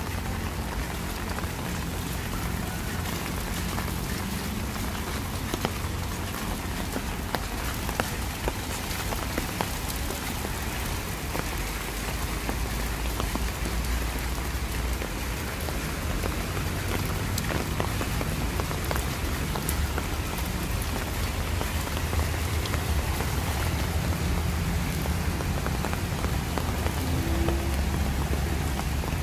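Steady rain falling on wet pavement and surrounding surfaces: an even hiss dotted with the ticks of individual drops, over a low rumble.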